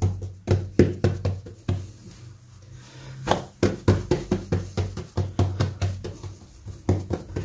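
Hands patting and pressing a large round of bread dough flat on a granite countertop: a series of soft slaps and pats, several a second, with a short lull between about two and three seconds in.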